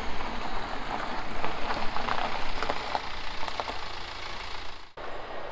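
BMW 120d's four-cylinder diesel engine running as the car rolls slowly up a gravel driveway, its tyres crunching and crackling on the loose stones. The sound stops abruptly about five seconds in.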